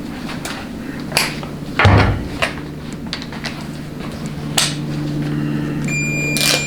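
Clinks and knocks of metal hand tools being handled during transmission valve body assembly, with a heavier thud about two seconds in, a steady low hum underneath, and a short electronic beep near the end.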